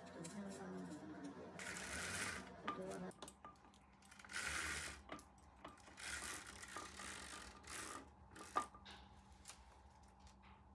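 Household handling noise: several short bursts of rustling, about two seconds in, around four and a half seconds in, and again from six to eight seconds, with scattered clicks and one sharp click near the end.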